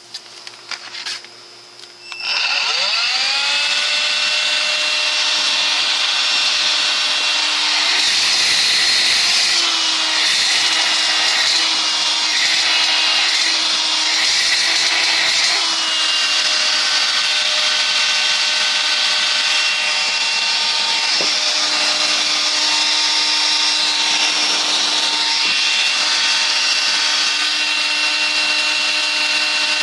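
A few clicks, then an Electrolux ZB3114AK 18V cordless stick vacuum switches on about two seconds in, its motor whine rising quickly to a steady high pitch. The pitch wavers for several seconds midway and then holds steady. It is running on its newly replaced lithium battery cells.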